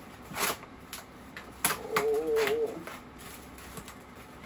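Plastic packaging crinkling and rustling as a parcel is unwrapped by hand, in several short crackles, with a short warbling tone about two seconds in.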